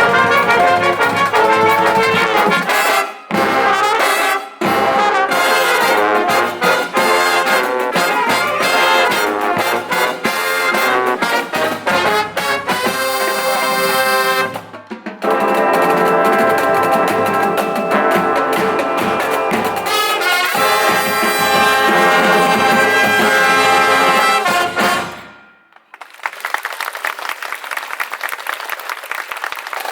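Marching band playing brass and drums, with two brief stops a few seconds in and a short break halfway. The piece ends on a long held chord that cuts off about 25 seconds in, and audience applause follows to the end.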